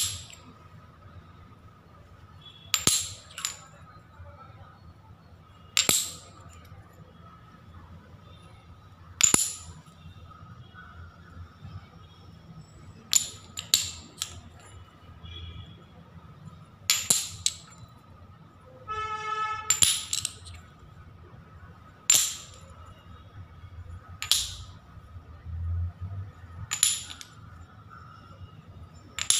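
Small glazed ceramic tiles clinking as they are picked up and set down one at a time on a hard surface: a sharp click with a short ring every few seconds, sometimes two or three close together.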